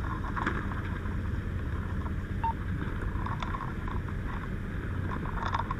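Steady low engine rumble of a fire rescue truck heard from inside its cab, with a short single beep about two and a half seconds in and a brief crackle near the end.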